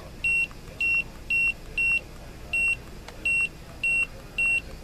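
Handheld barcode scanner beeping short, high, identical beeps, about two a second, eight in all: the good-read beep of each successful barcode scan with the original scan engine fitted.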